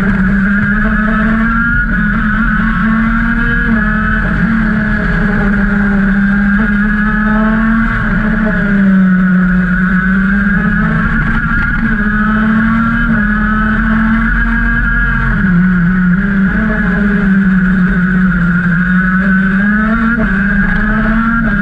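KZ shifter kart's 125cc single-cylinder two-stroke engine running hard at race speed, heard from on board. Its pitch rises and falls every few seconds as the driver accelerates and lifts through the corners.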